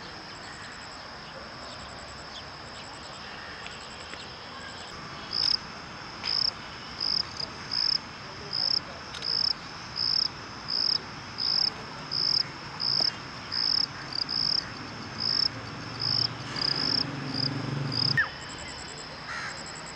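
Insects droning steadily in a high, thin tone, with a loud chirp repeating about one and a half times a second from about five seconds in until it breaks off near the end. A low rumble rises underneath shortly before the chirping stops.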